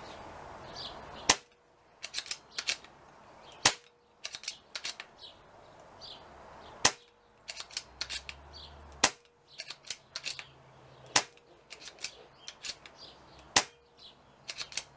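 Brocock Concept .177 pre-charged pneumatic air rifle firing six single shots, each a sharp crack, about two to two and a half seconds apart, with lighter clicks between the shots.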